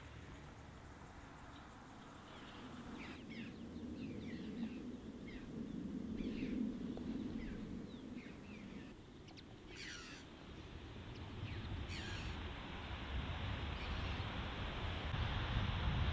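Outdoor natural ambience: birds chirping and calling, with two louder, harsher calls in the middle, over a steady rushing noise that grows louder toward the end.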